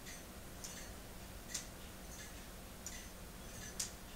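Escapement of a weight-driven K'nex plastic clock ticking steadily: light, sharp plastic clicks roughly every three-quarters of a second, some louder than others.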